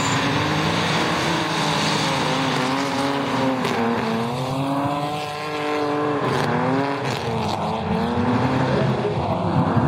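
A drift car's engine revving hard, its pitch rising and falling as the throttle is worked through the slide, dipping briefly about five seconds in, over the hiss of sliding tyres.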